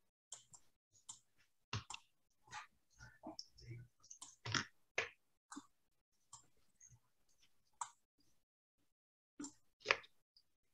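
Scattered faint clicks and taps from a computer mouse and keyboard being worked, at irregular intervals, with the loudest click near the end.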